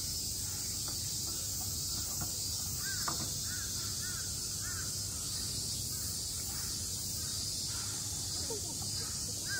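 A crow cawing, a run of about five caws from about three to five seconds in, over a steady high drone of summer cicadas.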